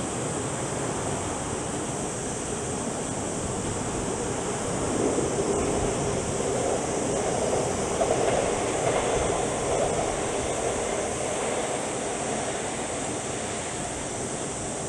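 Airbus A380's four jet engines at take-off thrust: a steady, rushing jet noise that swells to a peak a few seconds in and then slowly eases off.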